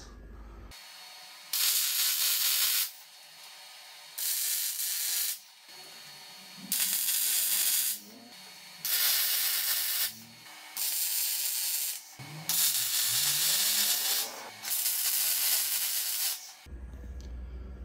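Arc welder tack-welding quarter-inch steel plate: about seven bursts of arc hiss, each one to two seconds long, separated by short pauses.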